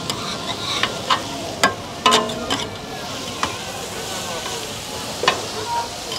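Meat and onions sizzling on a hot cooking plate, a steady frying hiss. Sharp clacks and scrapes of a utensil on the metal come several times, the loudest cluster just after two seconds in, with a brief metallic ring.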